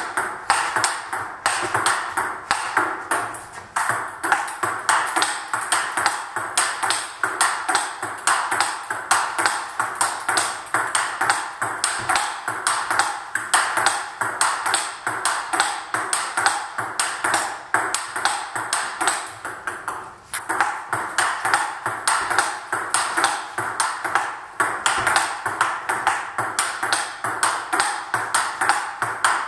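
Table tennis ball clicking in a fast, continuous rhythm, several times a second, as it is struck by the paddles and bounces on the table in a rapid drill, with a couple of brief breaks.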